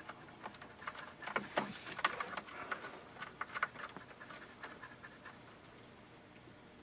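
A dog panting in quick breaths, mixed with small clicks and taps of battery cable lugs and terminal hardware being handled and finger-tightened; the sounds die away after about five seconds.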